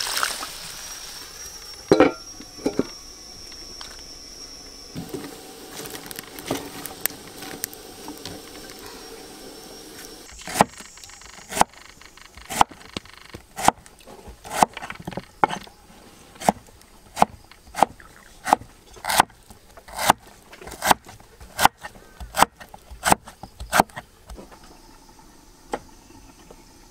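Repeated sharp knocks of a knife chopping on a wooden cutting board. There are a few scattered strokes at first, then a steady run of chopping at about one stroke a second, quickening a little before it stops near the end.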